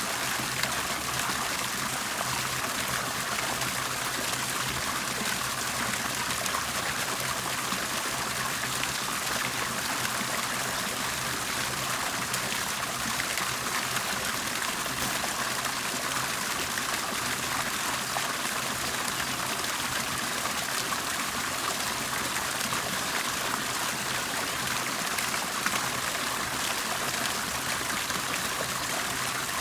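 Water bubbling and trickling in a steady, unbroken flow, with a faint low hum underneath.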